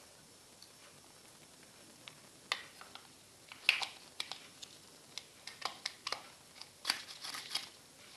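Green plastic hand-held garlic grater being worked: a garlic clove is pressed in its cylinder and slid over the steel grating plate, giving irregular clicks and short scraping rasps of plastic and garlic on metal. The first two seconds or so are quiet, and the scrapes come more thickly near the end.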